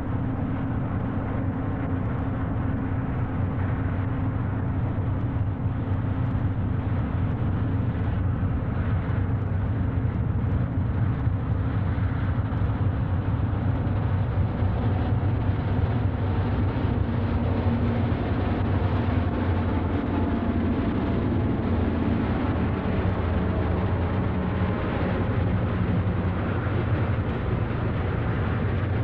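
Three Union Pacific GE U50C diesel-electric locomotives running together, pulling a freight train: a steady, low engine drone with a deep hum, a little louder after the first few seconds. It comes through an old film soundtrack with the treble cut off.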